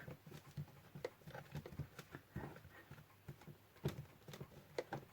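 Scattered faint knocks and clicks as the Roberts R717 radio's stuck chassis is pushed and worked against its cabinet without coming free; two slightly louder knocks about two and a half and four seconds in.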